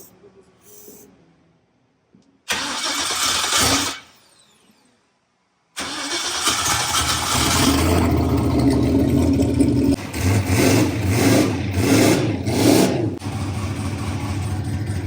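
Stock Modified race car engine: a short burst on the starter about two and a half seconds in, then a pause. About six seconds in the engine is cranked again, catches and runs, is blipped several times and then settles to a steady idle.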